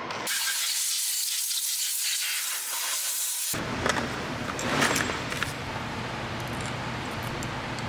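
A steady hiss lasting about three seconds that cuts off abruptly, followed by workshop background with a few light clicks.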